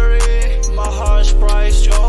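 Hip-hop music: a beat with deep, sustained bass notes that change about once a second, under a held melody and quick high ticks.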